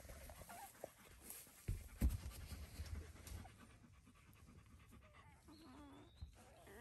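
Newborn Anatolian Shepherd–Great Pyrenees mix puppies give faint, short squeaks while nursing, and the mother dog pants after whelping. A couple of low thumps come about two seconds in.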